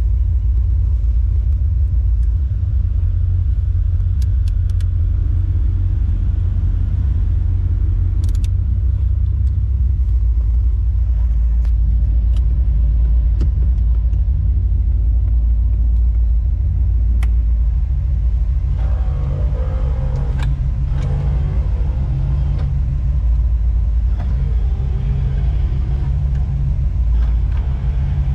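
1976 Chevrolet Corvette's 350 V8 idling steadily, a deep rumble heard from inside the cabin, with a few light clicks now and then.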